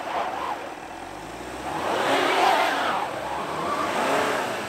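Volkswagen Tiguan's engine revving up and dropping back twice while it struggles up a snowy slope, its wheels spinning and churning the snow.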